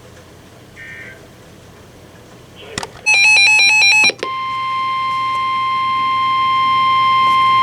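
NOAA Weather Radio emergency alert signalling: about three seconds in, a loud one-second burst of warbling digital data tones (the SAME header), then the steady 1050 Hz warning alarm tone starts and holds, slowly getting louder. The alarm tone marks the start of a warning broadcast.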